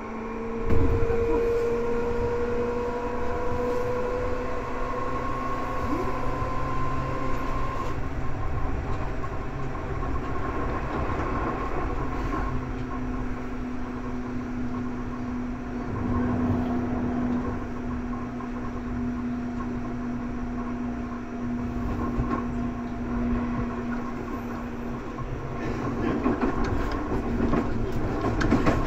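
Seibu 2000 series electric train running. The motor whine rises slowly in pitch over the first several seconds, then settles to a steady hum over the rumble of wheels on rail. There is a sudden loud jolt about a second in, and more knocking over the rail towards the end.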